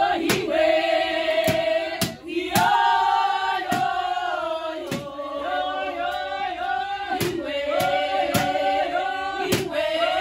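A group of people singing together in chorus, long held notes gliding up and down, with scattered hand claps.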